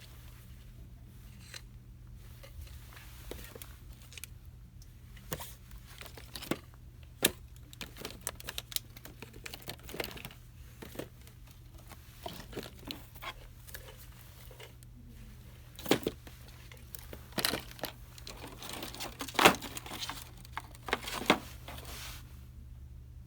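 Handling of packaging: irregular crinkling and tearing, with sharp clicks and light taps, busiest and loudest in the last third.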